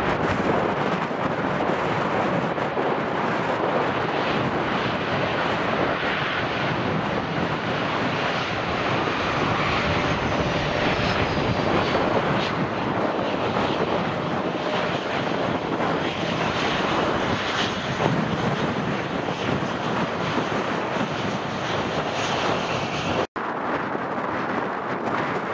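Steady jet engine noise from a Boeing 737's twin CFM56 turbofans as it rolls along the runway. The sound cuts out abruptly near the end, and another jet's engine noise follows.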